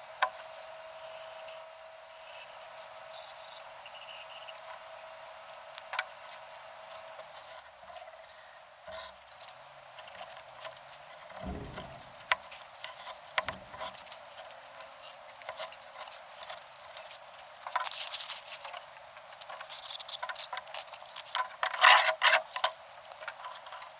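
Knife blade cutting and scraping through polystyrene foam: a run of scratchy, crackling rubbing strokes that grows denser about halfway through and is loudest near the end. Before that, fainter scratches and taps of a marker and steel ruler on the foam.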